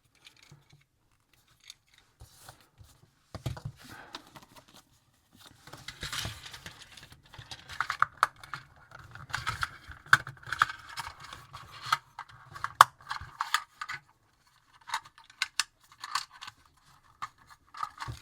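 Small snap-together model kit pieces being handled: scattered light clicks and rustling, busiest through the middle and thinning to a few clicks near the end.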